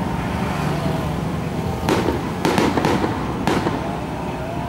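Fireworks exploding in the sky: four sharp bangs in quick succession from about two to three and a half seconds in, over steady low background noise.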